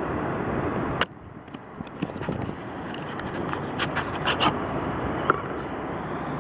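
Steady wind noise on the microphone with surf behind it, broken by an abrupt edit cut about a second in, and scattered light clicks and scrapes of something small being handled.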